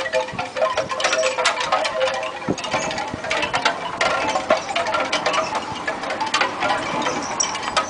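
Light metallic jingling and tinkling: many small irregular clinks with short ringing tones.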